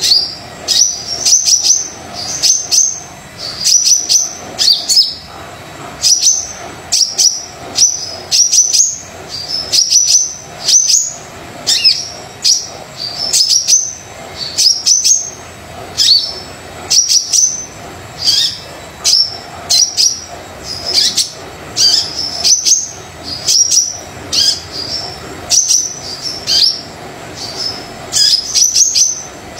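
Kolibri dada coklat (a sunbird) singing without pause: short bursts of sharp, high chirps, about one burst a second.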